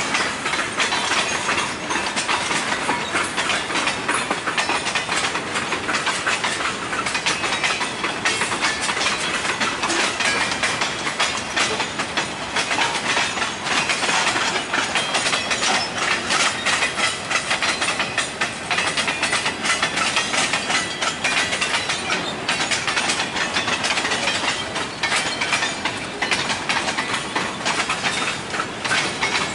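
Freight train boxcars rolling past, their steel wheels clicking and rattling on the rails in a steady, dense clatter.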